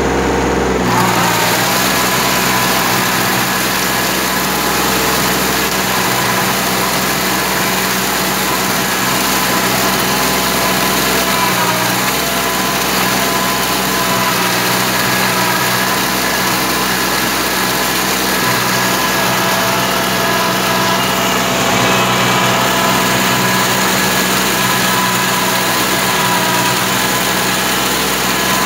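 Kubota B2140 compact tractor's diesel engine running steadily while driving a rotary tiller through a flooded rice paddy.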